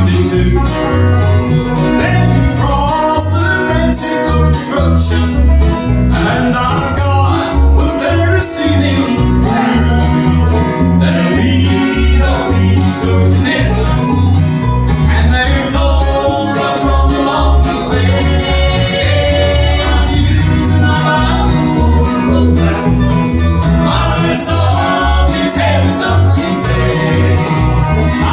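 Bluegrass band playing at a lively pace, with banjo, guitar and fiddle over a steady bass beat.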